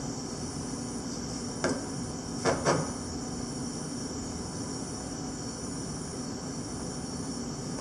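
A few short knocks from a metal can being picked up and handled at a wooden table: one about two seconds in, then two close together. Behind them an insect trills in repeated high-pitched pulses over a steady low hum.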